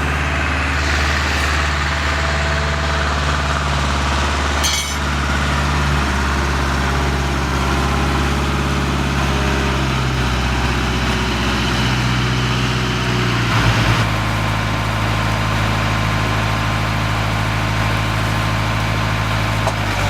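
An engine running steadily at idle, its low hum shifting slightly a few times.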